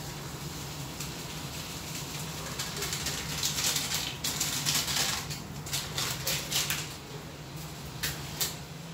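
A ladle stirring and knocking in a wide pan of simmering fish broth, with a noisy stretch of stirring and liquid a few seconds in, then a run of separate sharp clicks and taps. A steady low hum underneath.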